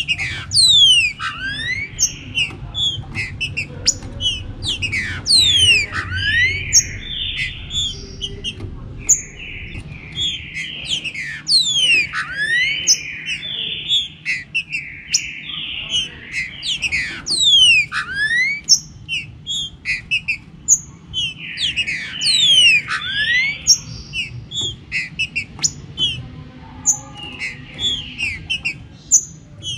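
Green-winged saltator (trinca-ferro) song: loud whistled phrases come one after another, with many quick, steeply falling whistles mixed in, over a low steady background noise.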